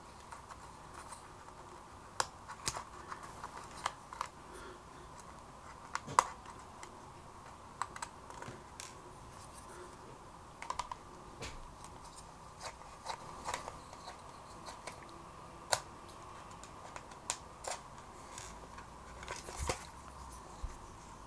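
Precision screwdriver bit working the tiny case screws of a Sony WM-EX610 Walkman cassette player: quiet, irregular small clicks and ticks of metal on metal. A cluster of clicks and a soft knock near the end as the player is handled and turned over.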